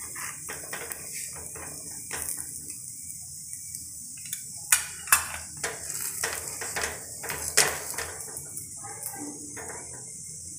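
A metal knife and spoon scraping and tapping on a paratha on a hot tawa as butter is spread over it, in irregular short clicks and scrapes, the sharpest a little under five seconds in, just after, and near seven and a half seconds. A steady high hiss runs underneath.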